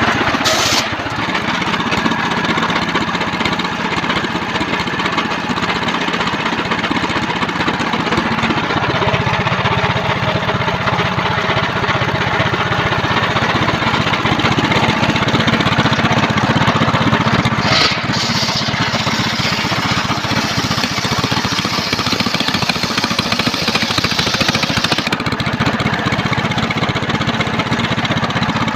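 Engine-driven homemade circular sawmill running steadily under load, its blade cutting through a trembesi log; a brighter high hiss rises for several seconds past the middle and then drops away.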